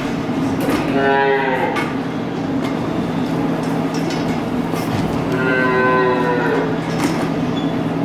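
Dairy calves mooing: two drawn-out calls, one about a second in and another around five to six seconds in, over a steady low hum and a few sharp metallic clicks.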